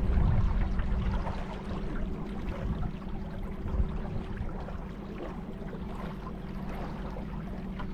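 Boat on a river: a steady low hum under rushing water and wind noise on the microphone, with gusts swelling in the low end, loudest in the first second.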